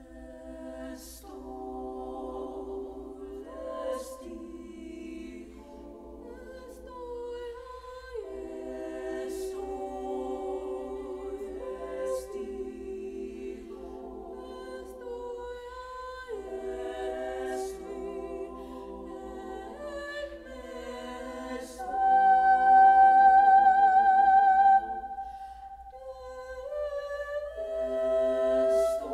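Women's high school choir singing a cappella in several parts, the voices entering together. About two-thirds through the sound swells to a loud held high note with vibrato, then falls back to softer chords.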